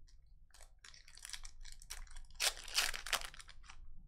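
Foil wrapper of a Donruss Optic basketball card pack being torn open and crinkled in the hands, a run of crackles that is loudest about two and a half to three seconds in.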